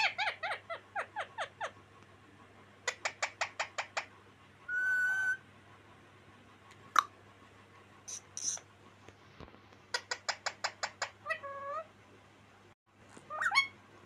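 Rose-ringed parakeet calling: quick runs of short chirps at about eight a second, a brief steady whistle, a single sharp note, and a few drawn-out, bending calls near the end.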